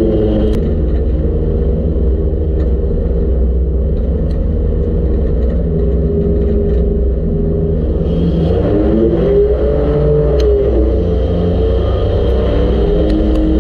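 Front-wheel-drive V6 race car's engine running hard, heard from inside the car. The revs rise and fall about eight to ten seconds in, with scattered sharp ticks over the engine.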